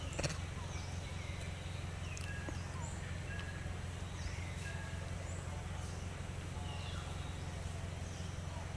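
Outdoor ambience: a steady low hum under many short, high, falling chirps of birds, with one sharp click about a quarter-second in.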